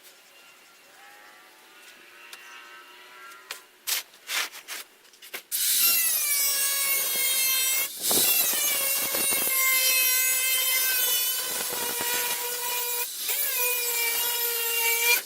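A power cutting tool on rusty car body sheet metal: a few knocks, then about five seconds in the tool comes on loud with a steady high whine, dipping briefly near eight seconds and again near thirteen.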